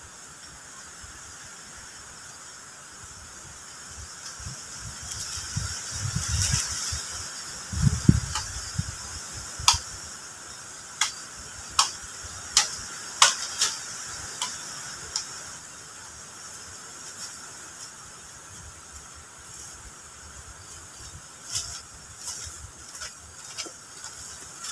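Wooden poles and dry sticks being handled and walked through in dry forest undergrowth: a heavy thud about eight seconds in, then a string of sharp cracks and snaps, a few more near the end. A steady hiss of insects runs underneath.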